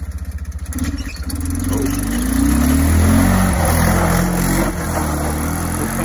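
Kawasaki Prairie 360 ATV's single-cylinder four-stroke engine pulsing at low revs, then revved up about a second in and held high as it spins donuts on ice, with a hiss of the tyres spinning on the icy surface, and eased back near the end.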